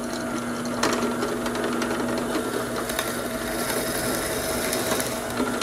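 Drill press running at its slowest speed, boring a 3/8-inch hole through a block of wood: a steady motor hum with a short click about a second in and a rise in cutting hiss around three to five seconds in.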